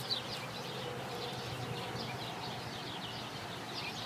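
Small birds chirping: many short, high chirps overlapping, with steady low background noise beneath.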